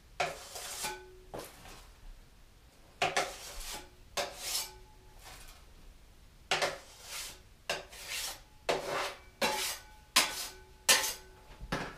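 A metal blade scooping all-purpose joint compound from a bucket and scraping it onto a plasterer's hawk. It makes a series of short scrapes about one a second, some with a brief metallic ring.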